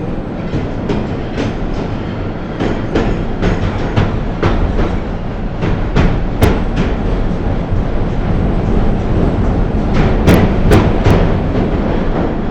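Train running on the rails: a steady rumble with wheels clacking over the rail joints at irregular intervals, and a few sharper, higher clicks near the end.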